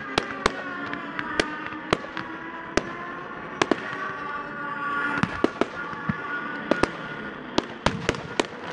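Pyrotechnic fireworks going off in sharp, irregular bangs, about two a second. Underneath, radio-controlled model aircraft engines drone steadily, their pitch sliding slowly as the planes fly past.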